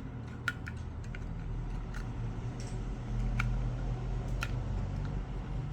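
Scattered small clicks and ticks, a few at irregular intervals, from tools and parts being handled on a smartphone under repair, over a steady low hum.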